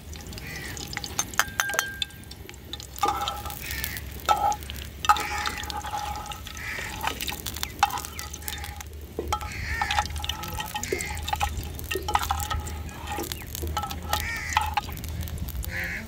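Metal slotted skimmer scraping and clinking against an aluminium karahi while sliced garlic fries in oil and is lifted out, with repeated sharp clinks and a soft sizzle of frying oil.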